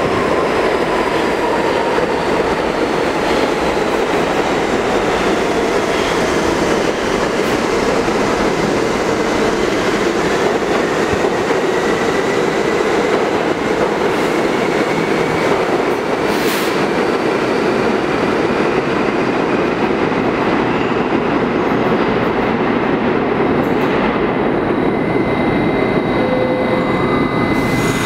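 R68/R68A subway trains running through an underground station: a loud, steady rumble and clatter of wheels on rails. Over it a whine falls in pitch at the start and another rises from about halfway, with a brief sharp screech-like noise about two thirds in.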